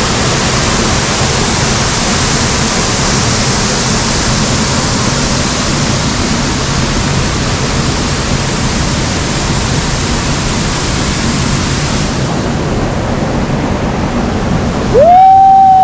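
Concord Waterfall's steady rush of falling water, a dense even hiss. Near the end, a loud high cry rises, holds and falls away over about a second and a half.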